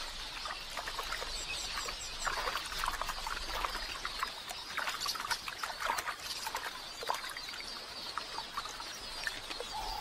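Water splashing in many short, scattered bursts as helmeted terrapins lunge and snatch birds at the water's edge, with the high chirping of a flock of quelea.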